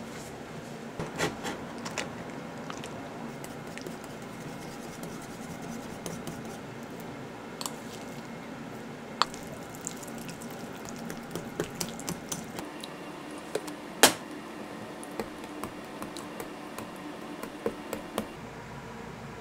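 A metal fork stirring and scraping a wet mentaiko-and-mayonnaise mixture in a small ceramic bowl, with light clinks of the fork against the bowl. One sharp clink about 14 seconds in is the loudest.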